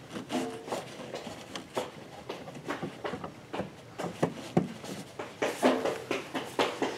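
Gloved hand fitting a headlight bulb's wiring plug back on in a car's engine bay: scattered small plastic clicks and knocks with rubbing of the glove against the parts.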